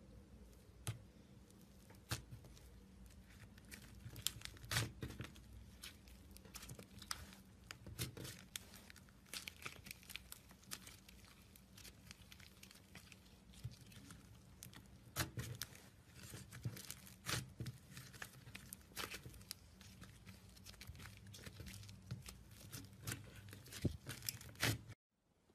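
Slime being pressed, stretched and squeezed by hand, with irregular crackling, popping and tearing as it pulls apart and is worked, over a faint steady hum. The sound cuts off suddenly just before the end.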